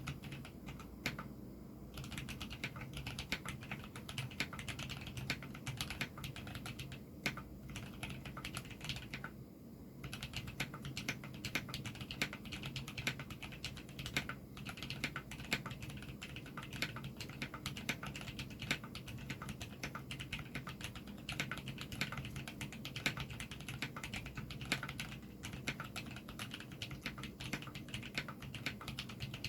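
Continuous fast typing on a rebuilt, lubed jer-06 custom mechanical keyboard with Zilios switches, the keystrokes clacking in quick runs with short pauses about 7 and 9 seconds in. A steady low hum runs underneath.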